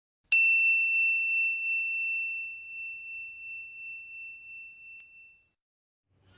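Intro sound effect: a single high, pure bell-like ding, struck once and ringing out as it fades over about five seconds.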